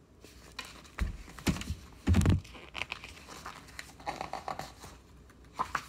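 A hardcover picture book's paper pages rustling and crinkling as the book is handled and a page turned, with three dull thumps in the first couple of seconds.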